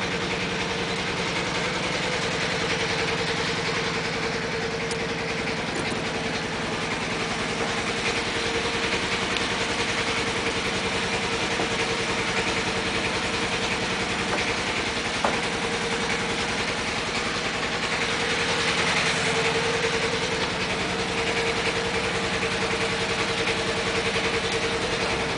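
A fishing boat's engine running steadily: an unchanging drone with a constant hum.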